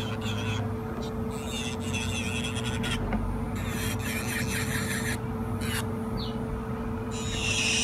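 Rechargeable electric nail drill (e-file) running at a steady speed, a constant motor whine.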